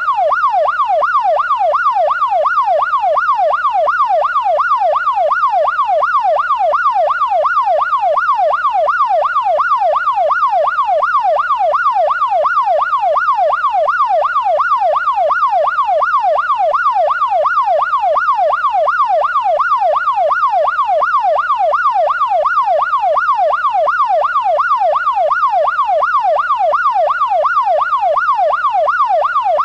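Electronic emergency siren sweeping rapidly up and down, about two cycles a second. It runs at a steady, unchanging loudness, with no approach or fade.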